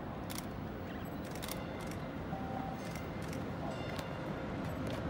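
MBTA Green Line light-rail train approaching in the distance: a steady low rumble that grows slightly louder, with scattered short clicks.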